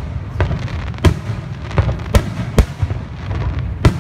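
Aerial firework shells bursting overhead, about six sharp bangs in quick succession over a steady low rumble, one of the loudest coming near the end.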